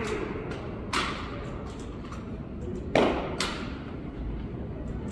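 Sharp slaps and thuds of rifle drill: hands striking a drill rifle and the rifle and boots meeting a hard concrete floor, ringing in a large hall. Three strikes, the loudest about three seconds in.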